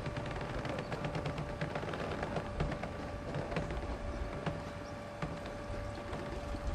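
A steady high-pitched hum over a low rumble, with scattered light clicks and knocks.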